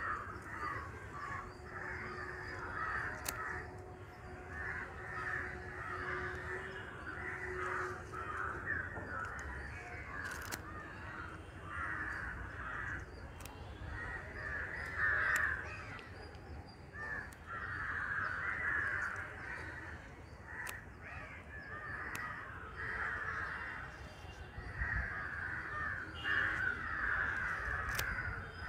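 Crows cawing over and over, several birds calling in ragged, overlapping bouts.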